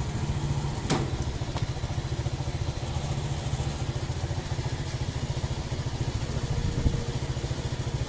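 An engine idling steadily close by, a fast, even low pulsing, with two light clicks in the first two seconds.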